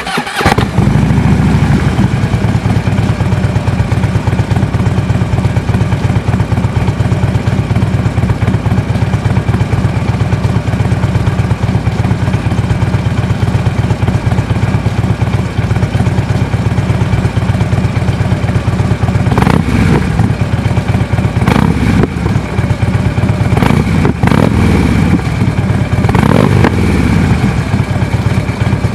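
Harley-Davidson bagger's V-twin running through Bassani DNT slip-on mufflers: it fires up at the start and settles into a steady, loping idle. About two-thirds of the way in, four short throttle blips rev it up and let it fall back to idle.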